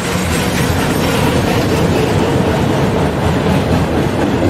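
Freight train's autorack and covered hopper cars rolling past on the rails: a loud, steady noise of wheels and car bodies with a low rumble underneath.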